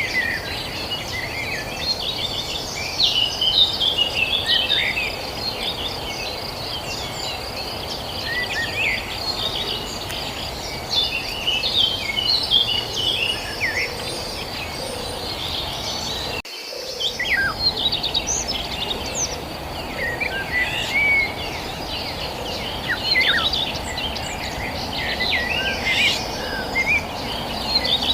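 Several birds chirping and calling in quick short notes over a steady, high-pitched insect trill and a low, even background hiss. There is a brief dropout about halfway through.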